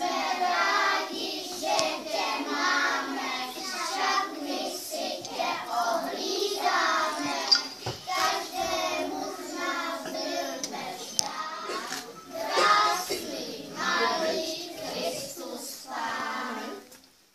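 A group of young children singing a song together in short phrases; the singing stops shortly before the end.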